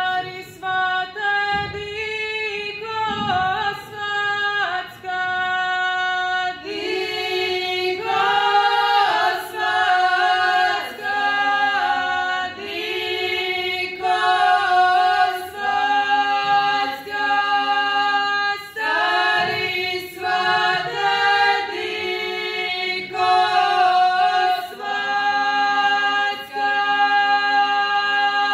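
A small group of women singing a traditional Croatian wedding song (svatovska pjesma) a cappella, several voices in harmony holding long notes, with short breaths between phrases.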